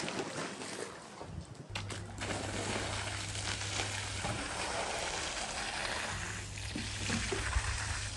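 Water from a hose spraying and splashing onto a soaked, soapy rug as it is rinsed, with a steady low hum underneath. The splashing gets louder about two seconds in.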